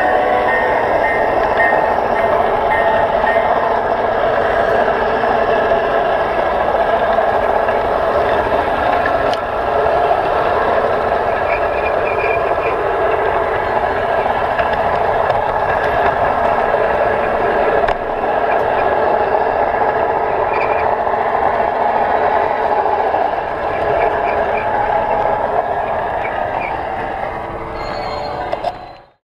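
Garden-scale model train running on its track: a steady whine and rumble from the locomotive's motor and gearing and its wheels on the rails. It fades out quickly near the end.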